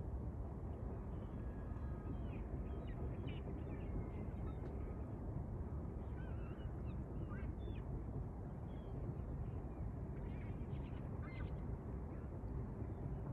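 Birds calling in short, scattered calls over a steady low rumble.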